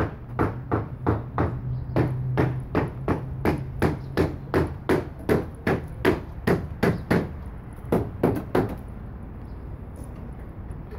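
Hammer blows struck in a steady rhythm, about three to four a second, stopping about nine seconds in. A steady low hum from a motor runs under the first half.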